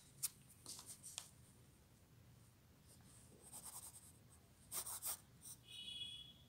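Pencil sketching on paper: faint groups of short scratchy strokes, with a sharp tick about a quarter second in. A brief faint high tone sounds near the end.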